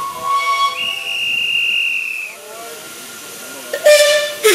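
Narrow-gauge steam locomotive standing with steam hissing; steady thin whistle tones sound in the first two seconds. Near the end the locomotive's steam whistle gives two short loud blasts.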